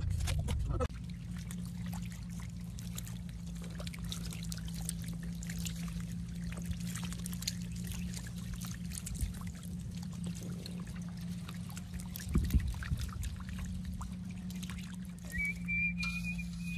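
Wet splashing and slapping of catfish flopping in shallow muddy water, over a steady low hum. There is a dull thump about twelve seconds in, and a high whistle near the end.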